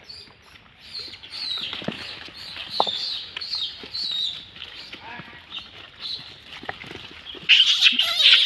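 A troop of young rhesus macaques squealing and chirping in short high calls, with scattered soft clicks. Near the end a louder burst of screeching breaks out.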